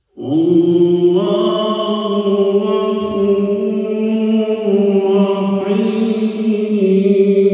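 A man reciting the Quran (qirat) in a melodic chant, holding long, slowly wavering notes into a microphone; the voice starts abruptly from silence.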